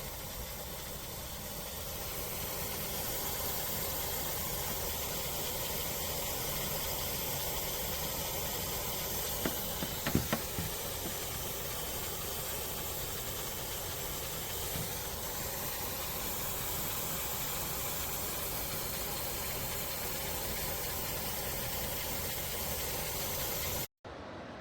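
COSTWAY 14000 BTU portable air conditioner running, a steady hiss of fan airflow, with a few brief knocks about ten seconds in.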